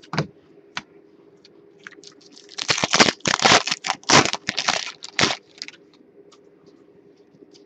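Clear plastic wrapper crinkling and crackling as it is handled and pulled open, in a run of loud bursts from about two and a half seconds in to a little past five seconds.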